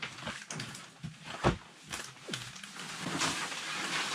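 Gear being handled on a bench: a few scattered knocks and clunks, the loudest about a second and a half in, then a longer stretch of rustling from a little under three seconds in.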